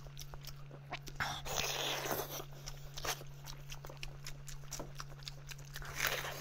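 Close-miked chewing of spicy roast pork ribs, with many small wet mouth clicks and smacks, and a noisy stretch about a second in. A louder bite comes near the end.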